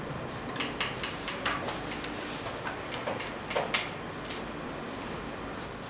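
Exam sheets being handed out and handled at classroom desks: a scatter of short paper rustles and light knocks, the loudest a little past halfway, over steady room noise.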